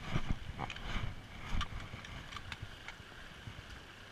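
Footsteps and sharp clicks on loose stones of a rocky trail, several in the first couple of seconds, over low rumble from wind on the microphone.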